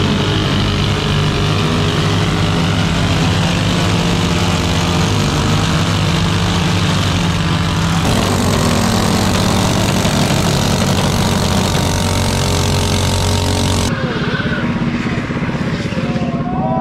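Mini bike engine running loud at steady high revs, its pitch held nearly flat. The sound changes abruptly about 8 seconds in and again about 14 seconds in, where it drops back and becomes quieter.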